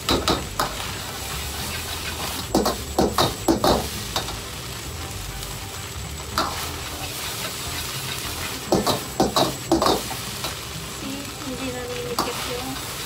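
Metal ladle scraping and knocking against a wok as fried rice is stirred and turned, in clusters of quick strokes several times, over the steady sizzle of the rice frying.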